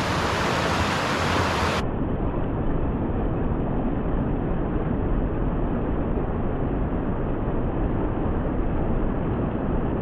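Rushing water of a small mountain stream tumbling over rocks, a steady noise that turns duller about two seconds in as its high end drops away.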